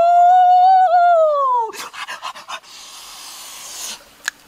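A long, high-pitched vocal 'oooh' from a man eating durian, held for about two seconds; its pitch rises slightly, then slides down as it ends. It is followed by a few quick mouth clicks and smacks from eating.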